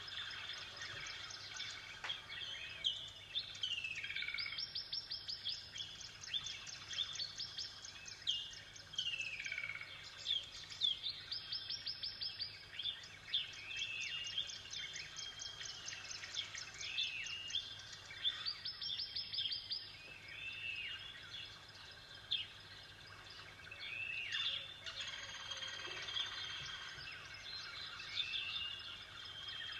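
Several songbirds singing, with fast trills of repeated high notes and many short downward-sweeping whistles, over a faint steady low hum.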